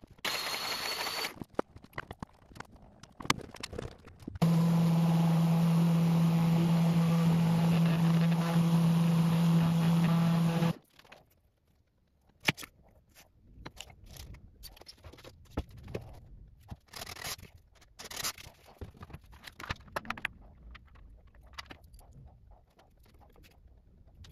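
A power tool's electric motor running at a steady pitch for about six seconds, starting and stopping abruptly. Afterwards there are soft, scattered taps and scrapes of hand tools on a wooden board.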